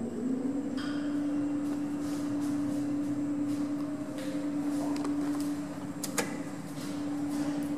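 Elevator machinery running with a steady hum heard through the shaft from the landing, with a few light clicks and one sharp click about six seconds in as the landing call button is pressed.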